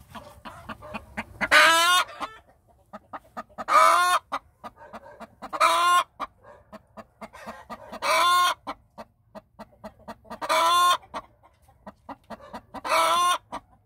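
Broody hen sitting in a nest box, giving six loud drawn-out calls about every two and a half seconds, with soft clucking between them.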